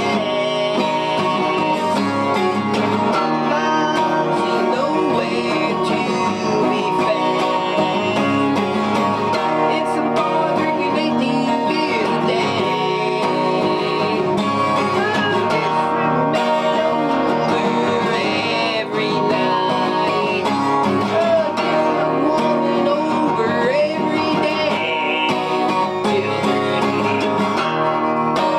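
Song in a country or bluegrass style, played on plucked string instruments such as guitar, with a singing voice.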